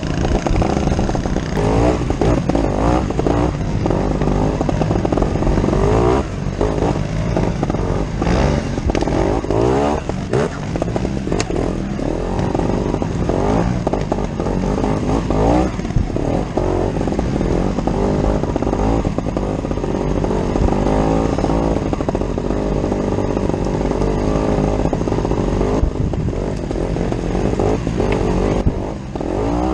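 Scorpa 250 two-stroke trial motorcycle engine, revving up and down over and over in a constant rising and falling buzz while riding slowly over rough, rocky ground.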